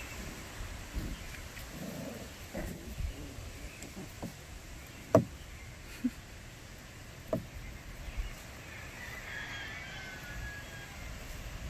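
Miniature schnauzer puppies play-fighting on grass: scuffling with a few short, sharp yips, the loudest about five seconds in. Faint high chirps come in near the end.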